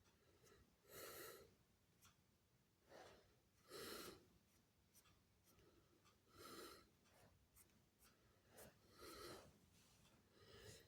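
Faint breathing close to the microphone, one soft breath about every two and a half seconds, with a few small clicks between.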